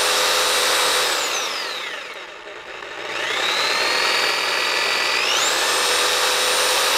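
Harbor Freight Hercules corded variable-speed reciprocating saw running with no load. It starts at full speed, then the trigger is let off about a second in and the motor whine falls away. Just after the three-second mark it starts again at a middle speed, then rises back to full speed about two-thirds of the way through.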